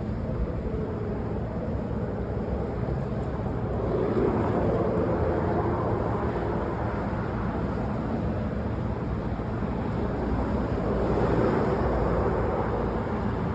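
Road traffic: a steady low rumble with two vehicles passing, the sound swelling and fading about four seconds in and again about eleven seconds in.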